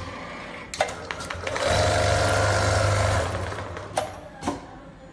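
CNC sewing machine stitching a bartack (tufting tack) for about a second and a half, a steady, fast-running hum in the middle of the stretch. It is framed by sharp mechanical clicks, two before the run and two after it.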